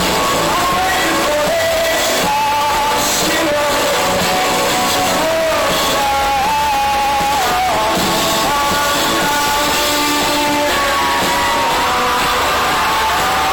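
Live rock band playing loud, with a lead vocal singing a gliding melody over the instruments.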